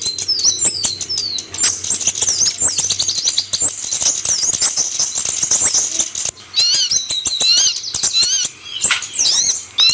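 Kolibri ninja (van Hasselt's sunbird) singing a rapid, high chattering song of thin up-and-down slurred chirps mixed with clicking notes. It breaks off briefly about six seconds in, then again about eight and a half seconds in.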